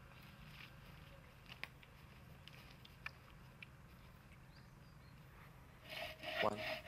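Quiet outdoor background with a few faint clicks, then near the end a bow saw starts cutting into a wooden beam: rasping back-and-forth strokes, about three a second, getting louder.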